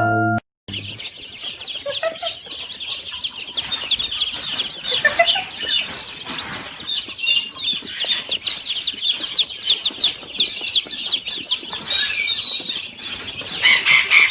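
A flock of birds calling all at once: a dense mass of short, high chirps and clucks overlapping each other, growing louder near the end.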